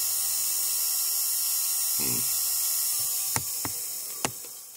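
Small electric rotary carving tool running with a steady hum while carving wet fire agate, then winding down over the last second or so. A few sharp ticks sound near the end.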